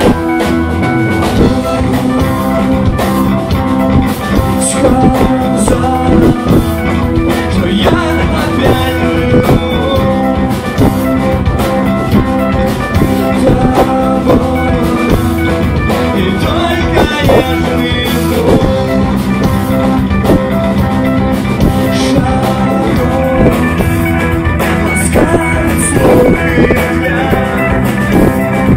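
Rock song played through: a drum kit keeps a steady beat under electric guitar, with a singing voice in places.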